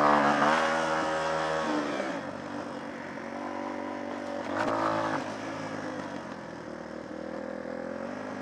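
Small motorcycle engine revving up sharply at the start, then running along at steadier revs, with a second brief burst of throttle about halfway through.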